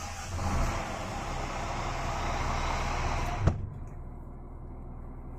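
Scania G410's 13-litre turbodiesel idling, heard loud through the open cab door. About three and a half seconds in, the door shuts with a single thud. After that the higher-pitched noise drops away and the engine carries on more quietly, muffled by the closed cab.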